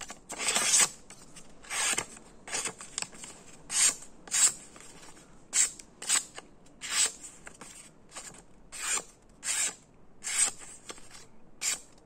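Freshly sharpened small Victorinox pocket-knife blade slicing through a sheet of printed paper in a series of short cuts, about one or two a second, as the edge is tested. The paper rustles with each stroke.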